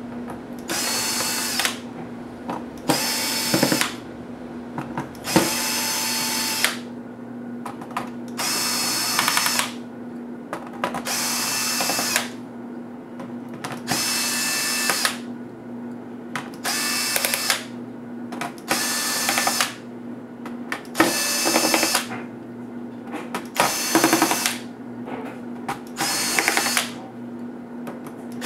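Cordless electric screwdriver whirring in about eleven short runs of a second or so each, with brief pauses between them, as it backs out a laptop's bottom-case screws. A steady low hum lies underneath.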